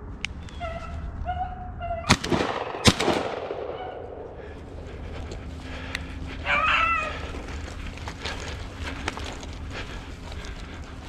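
Two loud gunshots a little under a second apart, each with a trailing echo. A few seconds later, a brief pitched dog bay over a steady outdoor background.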